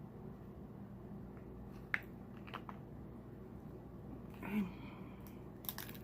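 Close-up eating sounds of seafood being chewed, with soft smacks and clicks. A sharp click about two seconds in is the loudest sound, a brief pitched mouth sound comes about halfway through, and a cluster of clicks falls near the end.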